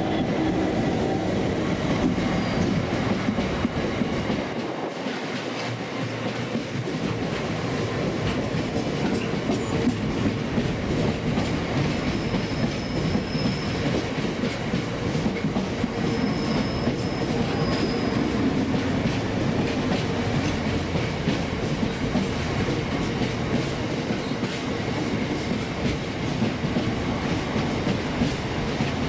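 Freight train rolling past, its wheels clicking steadily over the rail joints, with a few short high wheel squeals in the middle.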